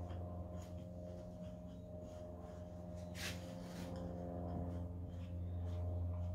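Quiet room with a steady low hum, and faint light clicks and a brief scrape about three seconds in as wooden canvas stretcher bars and a hex key are handled at a corner joint.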